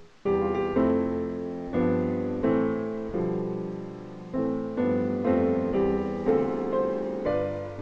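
Slow, gentle solo piano music: a loud chord comes in just after the start, then chords and notes are struck every half second to a second and left to ring and fade.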